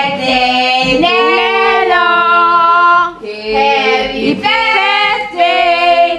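Women's voices singing a song, with long held notes and a brief break between phrases about three seconds in.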